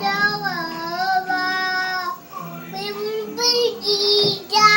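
A child singing a song unaccompanied, holding and sliding between notes in short phrases; the backing music is only on the child's headphones.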